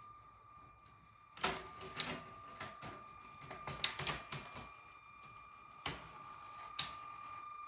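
LEGO train rolling on plastic track: irregular sharp clicks and clacks of wheels and couplings over the rail joints, bunched around the middle, over a steady high whine.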